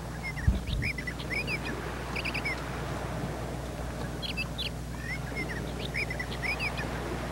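Birds chirping: short high chirps in two bursts, about a second in and again a few seconds later, over a steady low background rumble, with a single thump about half a second in.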